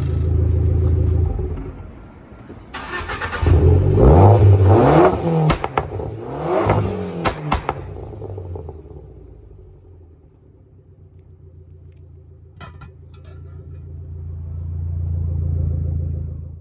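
Abarth 500's 1.4 T-Jet turbocharged four-cylinder engine revved several times, its pitch rising and falling with each blip. It then drops back to a quieter steady run and swells again near the end. The new silicone turbo intake pipe is fitted.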